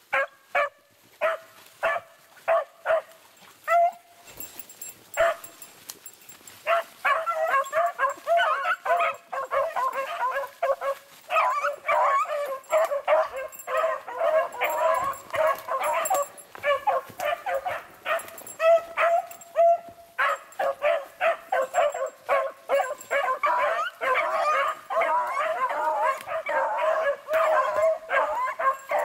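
A pack of beagles baying as they run a rabbit. There are scattered single bays for the first few seconds, then from about seven seconds in several hounds give tongue at once in a dense, overlapping chorus, with a brief pause about two-thirds of the way through.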